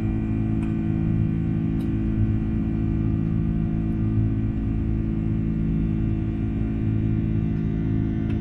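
Airbus A330-300's Rolls-Royce Trent 700 turbofans heard from inside the cabin during the climb after takeoff: a steady drone made of several held hum tones.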